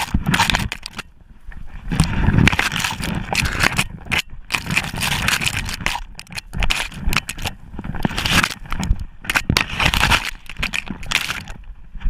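Dry, dead bracken stems and fronds crackling and scraping against the camera as a dog pushes through dense undergrowth, a constant rustling broken by many sharp snaps.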